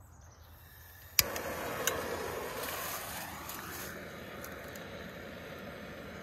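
Propane torch lit with a sharp click about a second in, a second click just after, then burning with a steady hiss as it is held to campfire kindling.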